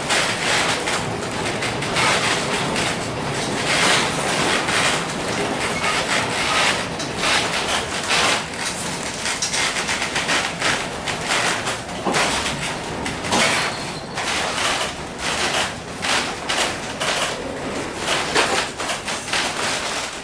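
A vintage 1906 wooden streetcar running along its track, heard from inside the car: a steady running noise of wheels on rail with constant rattling and knocking from the wooden body and fittings.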